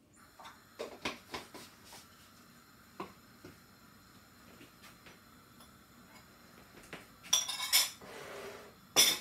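Kitchenware clinking and knocking, with a spoon against a bowl and glass: a few light knocks in the first two seconds, a louder ringing clatter about seven seconds in, and a sharp clink near the end.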